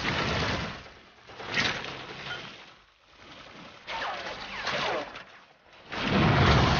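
Battle sound effects: a series of explosions, several blasts a second or two apart, the loudest near the end.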